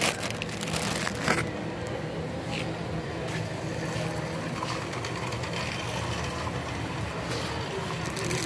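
Steady low hum of a warehouse store's background noise, with two short sharp clicks, one at the very start and one just over a second in.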